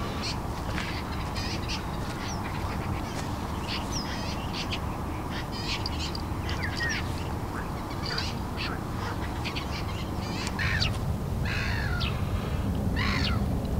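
Wild birds calling: many short chirps and whistles, with a few louder, harsher calls near the end, over steady low background noise.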